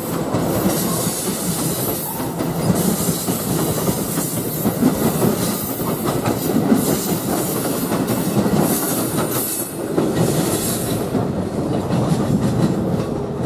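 NJ Transit MultiLevel bilevel passenger cars rolling past at close range: a steady rumble of wheels on rail with clickety-clack, and high-pitched wheel-on-rail noise that comes and goes. Near the end the high-pitched noise fades.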